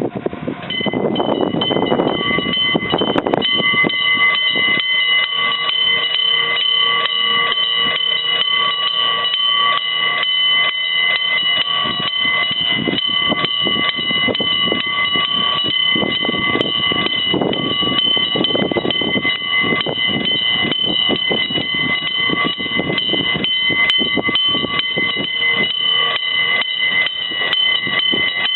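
Electromechanical railway level-crossing warning bell ringing, struck rapidly and repeatedly with a steady metallic ring. It starts just under a second in.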